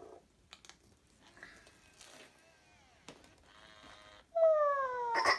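Little Live Pets interactive kitten toy giving an electronic meow: after a few faint sounds, one loud drawn-out mew falling in pitch starts about four seconds in.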